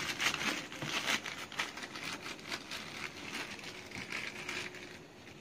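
Crinkling and rustling of cotton wool and a small plastic bottle handled while antiseptic is dabbed onto a dog's leg. It is a quick run of small crackles that dies away near the end.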